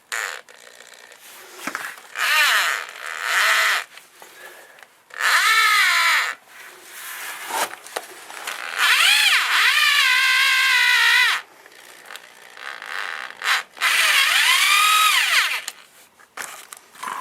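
Electric drill running in reverse with a screw extractor (easy out) in a broken, thread-locked shifter toe-peg bolt, in four separate trigger pulls. Each pull's whine rises in pitch as the drill speeds up and falls as it slows, with quiet handling noise in between: an attempt to back the snapped bolt out of the shift lever.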